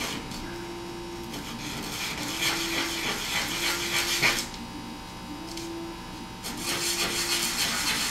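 Small laser-cut wooden parts rubbed back and forth by hand on a sheet of sandpaper: a scratchy rasping in two spells of strokes, with a pause of about two seconds in the middle. A faint short low tone repeats about once a second behind it.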